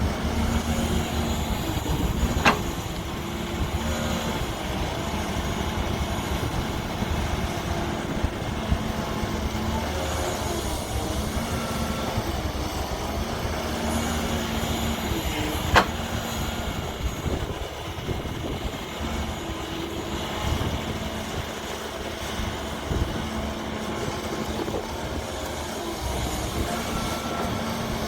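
Diesel engine of a JCB backhoe loader running steadily while it works, its pitch holding and easing in stretches, with two sharp knocks, one a couple of seconds in and one about halfway through.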